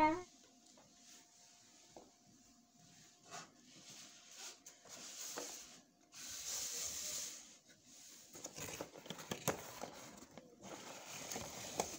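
Faint rustling and rubbing of a cardboard toy box and its plastic window being handled, with scattered light clicks and taps in the last few seconds.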